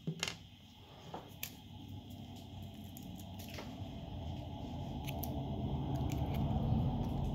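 Handling sounds of small parts being picked up at a repair bench: a few light clicks in the first second and a half, then a rough low rubbing and rustling that grows steadily louder.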